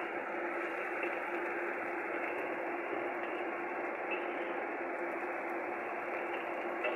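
Ground chilli spice paste frying in oil in a wok with a steady sizzle, stirred with a metal spatula that gives a few light scrapes against the pan.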